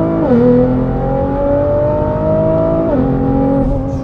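Tuned 2018 Nissan GT-R's twin-turbo 3.8-litre V6, fitted with an aftermarket exhaust, accelerating through the gears, heard from inside the cabin. The engine note climbs steadily and drops sharply at quick upshifts, about a third of a second in and again about three seconds in, then holds steady near the end.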